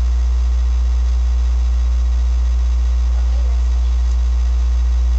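Loud, steady low hum running under the recording, typical of electrical mains hum or a ground-loop fault. Faint, distant speech comes through about three seconds in.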